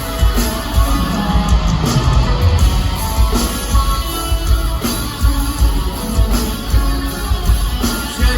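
Loud live rock music from a concert sound system: electric guitar over drums with a heavy, pulsing kick drum.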